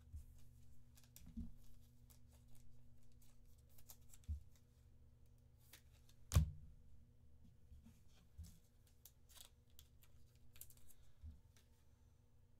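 Trading cards being slid into rigid plastic top loaders and handled on a table: scattered soft clicks, scrapes and taps, with one louder knock about six seconds in, over a low steady hum.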